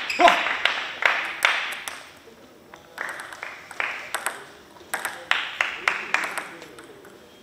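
Plastic table tennis ball bouncing and being tapped between points: a run of sharp, light ticks with hall echo, coming about three a second from about three seconds in. A brief voice is heard at the very start.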